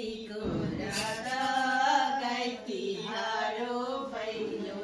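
Voices singing a Nepali Bhailo (Tihar) folk song, holding long drawn-out notes.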